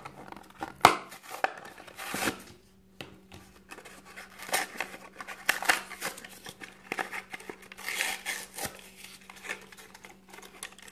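Hands tearing open a toy car blister pack: the cardboard backing card ripping and the clear plastic blister crinkling in irregular bursts, with a sharp snap about a second in.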